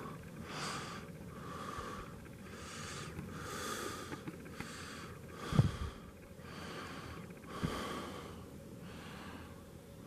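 A person breathing in and out about once a second, with a sharp thump about halfway through and a smaller one a couple of seconds later.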